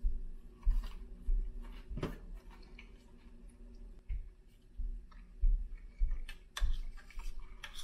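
Chewing a mouthful of Greek yogurt with blueberries and protein bar, with scattered small clicks and a few soft low bumps as the bar scoops through the yogurt in a plastic bowl. A faint steady hum runs underneath.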